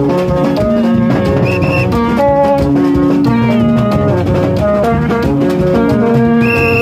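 Haitian rara band playing in the street: vaksin tubes and metal kòne horns blowing short held notes that overlap and interlock in a repeating pattern, over percussion.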